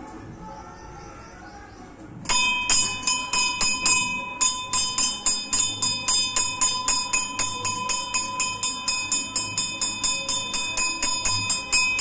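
Hindu temple bell rung rapidly by hand, about four strikes a second, each strike ringing on a clear high tone. It starts about two seconds in, with a short break a couple of seconds later, then keeps on steadily.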